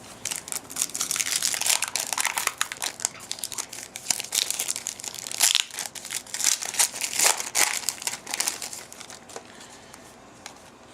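Crinkling and rustling of a trading-card pack's wrapper and cards being handled: dense, irregular crackles that die away near the end.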